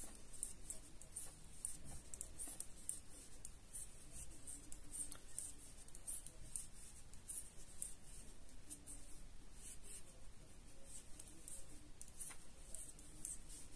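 Knitting needles clicking faintly as rows of stitches are knit, with yarn rubbing: a quick, irregular patter of small ticks.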